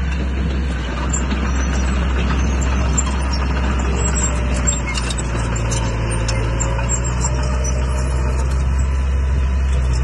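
Small crawler bulldozer's diesel engine running steadily as it pushes rocky fill, with light metallic clicks and clanks over it. About halfway through, a slightly higher engine note joins the low drone.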